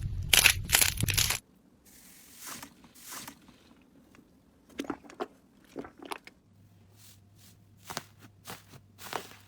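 Slime being squeezed and poked by hand, giving sharp crackling pops and clicks. Loud with a low rumble underneath at first, it cuts off about a second and a half in, and quieter scattered crackles follow.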